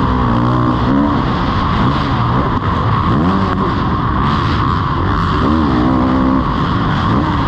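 Kawasaki KX450 single-cylinder four-stroke motocross engine under hard riding, its pitch rising and falling over and over as the throttle is worked through the turns, with a constant rush of wind noise on the helmet.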